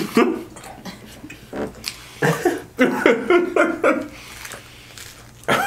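People laughing at the table in short repeated bursts, the longest run of 'ha's about three seconds in.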